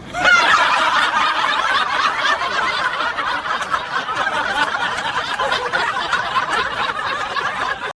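People laughing hard and without a break, cutting off abruptly near the end.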